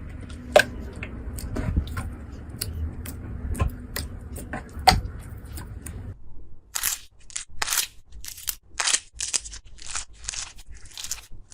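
Slime being pressed and squeezed by hand: scattered crackly clicks and pops over a low steady background, then, after a cut about six seconds in, a run of crisp crunchy squishes about once or twice a second.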